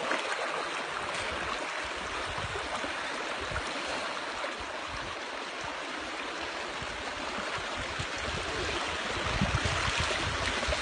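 Muddy rainwater flowing fast in a shallow sheet over stony ground, a steady rush of water.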